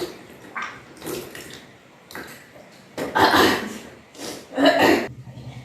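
A person retching and bringing up the water they have drunk in kunjal kriya (vaman dhauti), the yogic cleansing by vomiting water. Several retches with gushes of water, the loudest about three seconds in and again just before the end.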